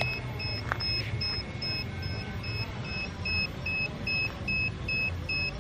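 Rapid electronic warning beeping from the small drone's controls: short, high two-tone beeps repeating steadily about four times a second, over a low steady background rumble.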